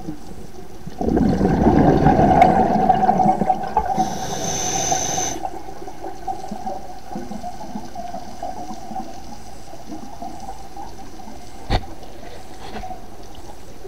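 Scuba diver breathing through a regulator, heard underwater: a loud rush of exhaled bubbles starting about a second in and lasting about three seconds, then a shorter hissing inhale. After that only muffled underwater noise, with one sharp click near the end.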